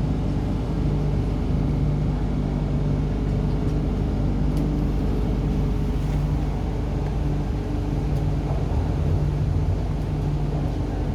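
MTR Kwun Tong line Q-Train running between stations, heard inside the car: a steady low rumble with a droning hum that fades in and out.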